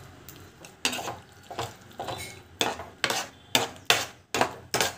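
Metal spatula scraping and knocking against a pan while thick, cooked semolina for rava kesari is stirred and its lumps broken up. The strokes come about twice a second and grow louder after the first second.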